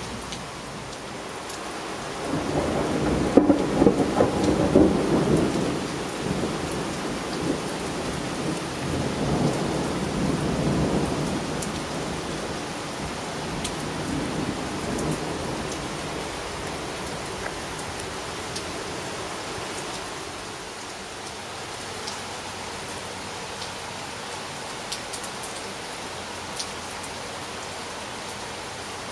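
Thunder rolling over steady rain. A long peal builds about two seconds in, is loudest a second or two later, rolls on in waves and dies away by about twelve seconds, with a fainter rumble shortly after. The rest is steady rain with the odd sharp drip.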